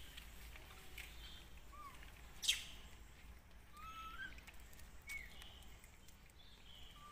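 Birds calling faintly in the trees: short rising and falling chirps every second or two, with one sharp, much louder call about two and a half seconds in.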